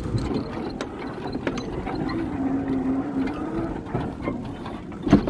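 A vehicle's engine and rattling cab heard from inside while driving, with many small clicks and knocks, a hum in the middle and one sharp knock near the end.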